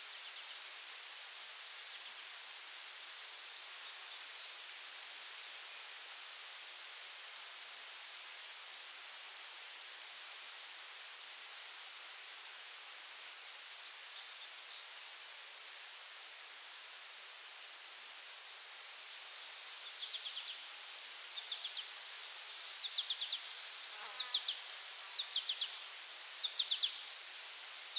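Forest insect chorus: a steady high-pitched insect drone over a hiss, with a fast run of ticking chirps. About two-thirds of the way through, short high chirps start and repeat roughly once a second.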